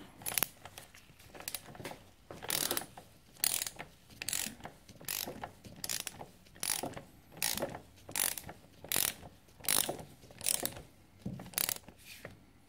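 Ratchet wrench clicking through repeated back-strokes, about one burst of clicks every three-quarters of a second, as a 19 mm nut on a dirt bike's rear-suspension relay arm is cranked up tight toward 80 Nm.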